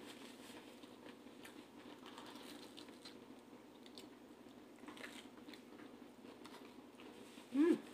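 Quiet biting and chewing of cheese-stuffed-crust pizza close to the microphone, with small scattered crunches. A brief hum of the voice rises near the end.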